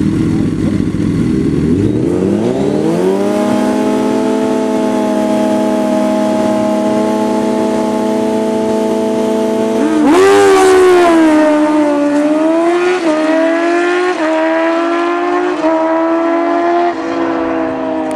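Two drag-racing sport bikes at the start line, engines rising from a low idle to a held, steady high rev. About ten seconds in they launch and accelerate hard, the pitch climbing and dropping back four times as they shift up through the gears, then fading as they run off down the strip.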